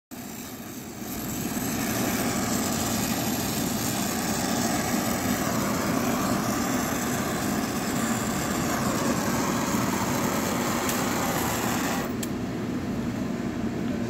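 Brazing torch flame hissing steadily as it heats a copper joint to braze a refrigerant leak on a window air conditioner. It gets louder about a second in and drops off about twelve seconds in as the flame comes off the joint.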